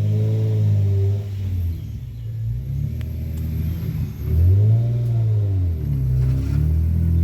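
Hyundai Tiburon's 2.7-litre V6 pulling under acceleration on a drive, its pitch rising and falling as it revs and eases off. It runs evenly now that water has been cleared from the spark plug wells that were causing the misfires.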